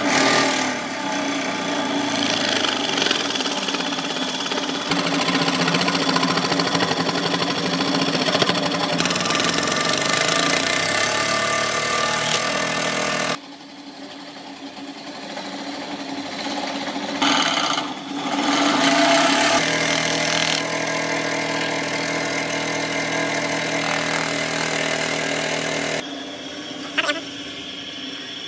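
Restored bench jig saw (scroll saw) machine running, its blade driven up and down with a steady mechanical sound. It drops off sharply about halfway through, starts again a few seconds later, and runs until shortly before the end.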